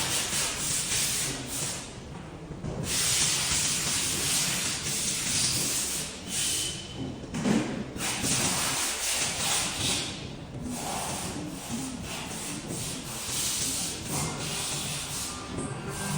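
CNC framing row-cutting machine at work: repeated stretches of hissing, scraping noise, each lasting a few seconds, separated by brief quieter gaps.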